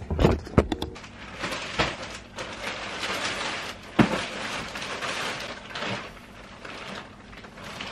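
Handling noise as packages and clothes are moved about: a few knocks in the first second, then an irregular rustling with a sharp knock about four seconds in.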